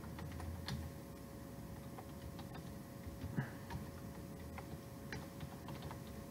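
Computer keyboard being typed on: faint, irregular keystroke clicks in short runs, over a faint steady hum.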